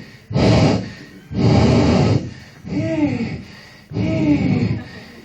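Mouth-made sound effects from an improv performer: a steady run of separate vocal bursts about one a second, the first couple hissing and the later ones short hums that rise and fall in pitch, standing in for footsteps.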